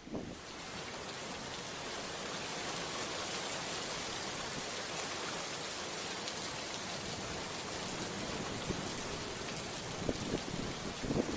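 Steady rain falling, an even hiss, with some low rumbling near the end.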